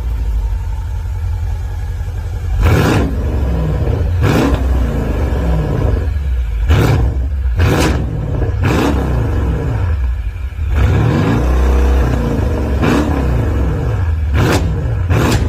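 Mercedes-AMG S63 twin-turbo V8 revved repeatedly in short blips through a full aftermarket exhaust with sport resonator, its factory-linked exhaust valves open in Sport mode. The pitch rises and falls with each blip, and sharp cracks come between several of the revs.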